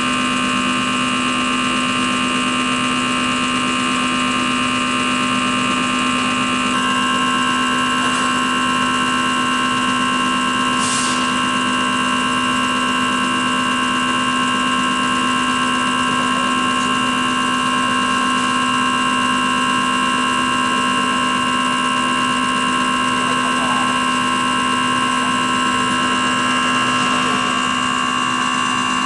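CR926 common rail test bench running an injector test: its drive motor and high-pressure pump give a steady hum with several constant high whining tones. The pitch pattern of the whine shifts about seven seconds in.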